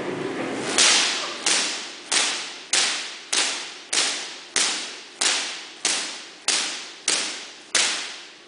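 Artificial lightning from a giant Van de Graaff generator striking a metal Faraday cage: twelve sharp cracks, evenly spaced about two-thirds of a second apart, each trailing off over about half a second.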